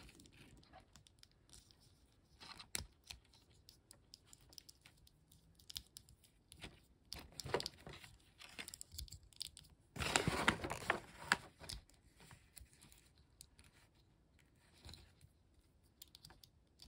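Small plastic toy parts clicking and ticking as a grape-shaped Transformers BotBots figure is folded by hand, with a short burst of plastic rustling about ten seconds in.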